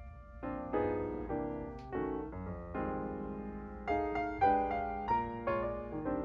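Background piano music: a slow run of single notes and chords, each struck note fading away.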